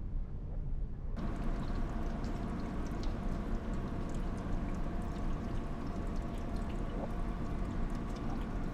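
Water pouring or running in a steady stream with scattered small splashes, starting abruptly about a second in.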